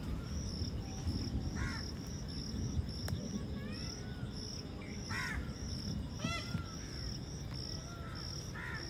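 Cricket chirping in a steady, even rhythm about three times a second, with short bird calls several times over a low rumble of background noise.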